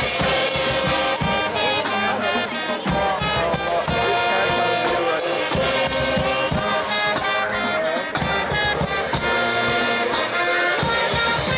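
High school marching band playing, wind instruments holding sustained notes over bass drum and cymbal strikes.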